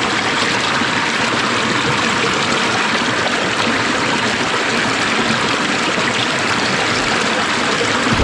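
Upland river water running over rocks, a steady rushing noise.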